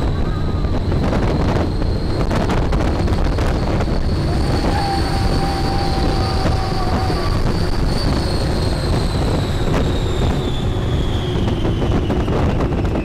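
Test Track ride vehicle running at high speed on the outdoor loop: strong wind rushing over the microphone and a low rumble from the car on the track, with a high whine that climbs slightly and then falls away over the last few seconds as the car slows.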